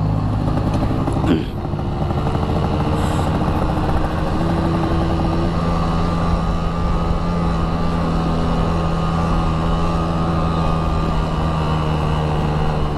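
Yamaha RX-King two-stroke motorcycle engine running at a steady speed under way, its pitch holding level throughout.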